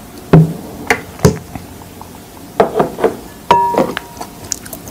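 Sharp knocks and taps as a seasoning box is shaken and tapped over a glass mixing bowl, then a glass clink with a short ringing tone about three and a half seconds in as a small glass sauce dish is handled.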